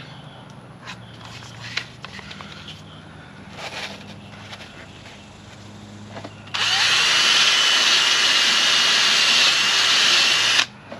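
A few light scrapes and clicks, then about six and a half seconds in a power drill spins a wire brush against a rusty starter-solenoid terminal, running steadily with a high whine for about four seconds before stopping suddenly.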